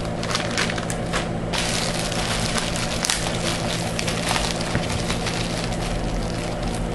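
Plastic packaging crinkling and crackling with many small clicks as packets of washi tape are handled, over a steady low hum.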